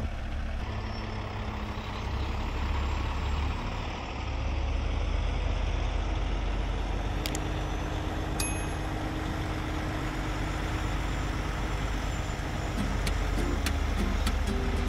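Diesel semi tractor engine running at low speed as the truck pulls its long flat trailer slowly across the lot, with a steady low rumble.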